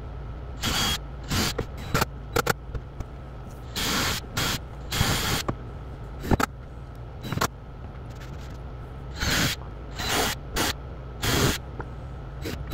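DeWalt cordless drill-driver run in about a dozen short bursts, each under a second, some spinning up or down in pitch, as it pre-drills and drives screws into the plywood and 2x4 frame.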